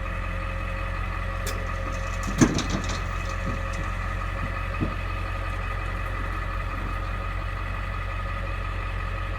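A steady mechanical hum, like a motor or engine running, with a few knocks about two and a half seconds in and one more near five seconds.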